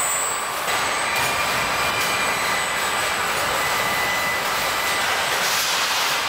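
Steady machinery noise of an electric-motor production hall: an even hiss with thin, high, steady whines over it, changing in tone a few times.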